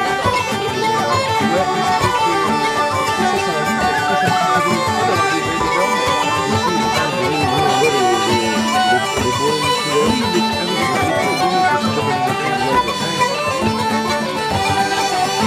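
Traditional folk tune played live by an acoustic group: a set of bagpipes with a steady drone leads, with a bodhrán frame drum beaten underneath and whistles joining the melody.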